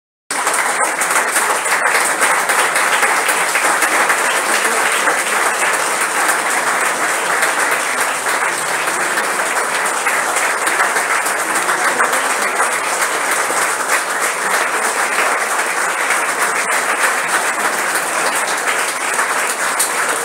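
A crowd applauding: a steady, sustained round of many hands clapping that cuts in abruptly at the start.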